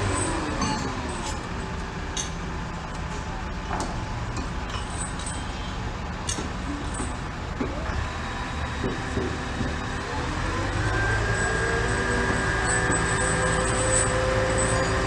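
Crane engine running under load: its revs drop in the first couple of seconds, run lower, then climb back up about ten seconds in. A few sharp knocks sound over it.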